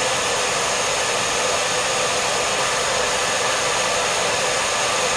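Handheld hair dryer running steadily: an even rush of blown air with a faint, constant motor whine.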